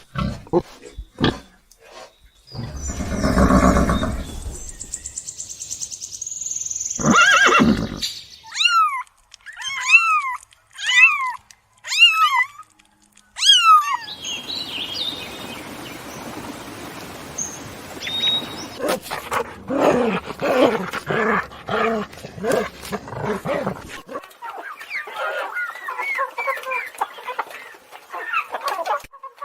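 Calls from several different animals in turn. A few short grunts come first, then a long rough call, then a run of about six short calls that rise and fall, and later a stretch of noisy calling with pitched cries near the end.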